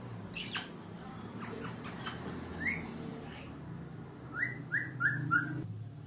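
African grey parrot giving short whistled chirps, each a quick upward-sliding note. One comes a little under halfway through, then four in a rapid even series near the end.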